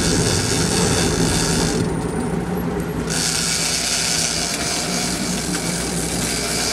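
Big-game trolling reel's drag buzzing as a hooked blue marlin pulls line off, breaking off for about a second near two seconds in and then going on. Under it, the boat's engine runs steadily.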